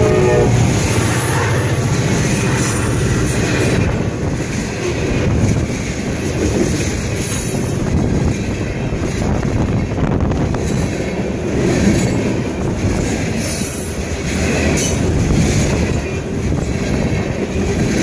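Freight train of tank cars and covered hopper cars rolling past over a grade crossing: loud, steady rumble with repeated clatter of wheels over the crossing and rail joints. A locomotive horn blast cuts off just at the start.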